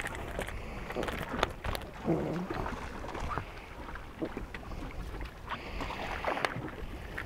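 Wind and water around a stationary fishing boat, with scattered light clicks and knocks of fishing gear and the boat.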